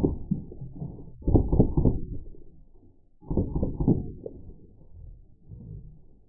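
Slowed-down, deeply pitched-down sound of a Drozd Blackbird full-auto BB gun firing: rapid dull thumps blur together. There are two louder bursts, about a second in and again just past three seconds, and the sound dies to a low rumble after each.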